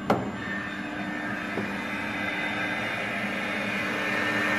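A single sharp click near the start, then the steady whirr and hum of a running UV accelerated-weathering test chamber, growing slightly louder.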